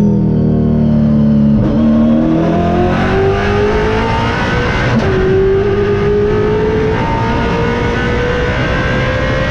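Holden Torana touring car's V8 heard from inside the cabin, pulling hard: the engine note eases off for a moment, climbs steadily, drops sharply with an upshift about five seconds in, then climbs again.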